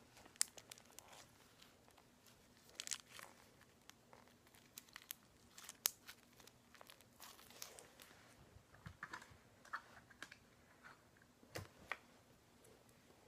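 Slime being stretched and poked by hand, giving faint, scattered crackles, clicks and small pops.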